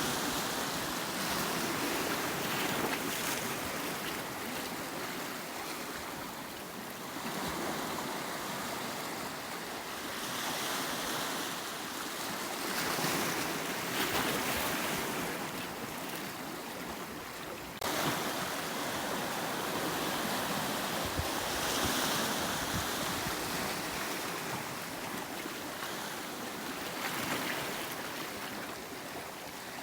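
Sea waves breaking and washing over a rocky volcanic shoreline in a continuous rush of surf that swells and eases every few seconds, with one sudden louder surge a little past halfway.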